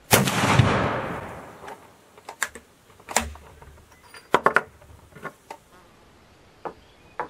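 A single shot from an 1854/67 Wänzl rifle in 14x33R right at the start, its report dying away over about a second and a half. A series of sharp metallic clicks follows as the rifle's flip-up trapdoor breech is opened and worked for reloading.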